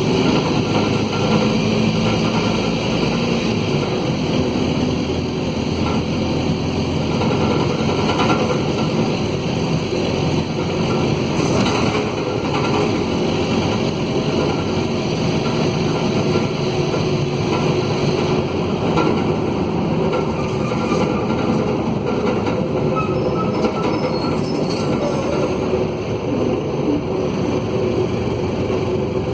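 Mercedes-Benz OM904LA four-cylinder turbo-diesel of a midibus running steadily under way, with the rasp of a broken exhaust.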